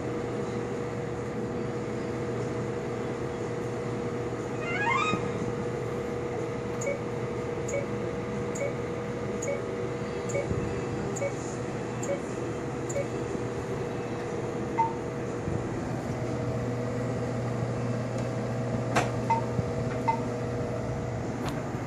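Cutera Xeo laser console humming steadily. About five seconds in there is a quick rising run of electronic tones. Then come short, evenly spaced beeps about once a second for several seconds, and near the end a click and a few short touchscreen beeps.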